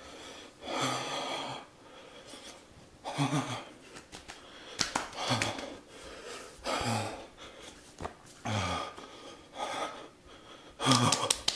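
A man breathing hard against the burn of the Paqui One Chip: about seven loud, hissing breaths through pursed lips, one every second and a half or so, several ending in a short falling groan. A quick run of sharp clicks comes near the end.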